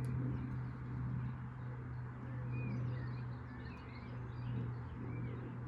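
A steady low hum with a few faint, short bird chirps over it in the middle.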